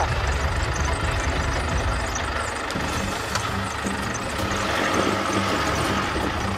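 Vehicle engine idling steadily with a low, even rumble. A low hum joins in about a third of the way through.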